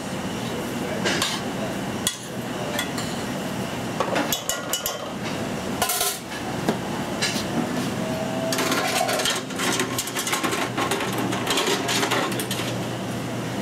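Kitchen clatter: a stainless pan and metal utensils knocking and clinking a few times over a steady low hum, with a busier run of clinks and handling later on.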